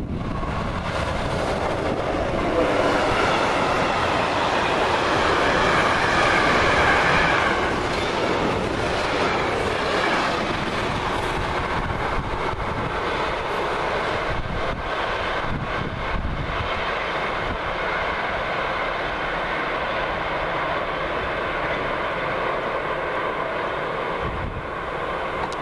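Loaded freight train hauled by a ČD Cargo class 363 electric locomotive passing close by: the sound is loudest a few seconds in as the locomotive goes past, then the wagons keep rolling by steadily on the rails, easing off slightly near the end.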